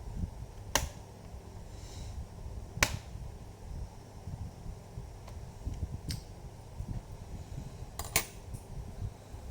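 A screwdriver working a stuck screw in a laptop's case: a few sharp clicks as the bit slips and knocks, the loudest about three seconds in, over low handling rumble.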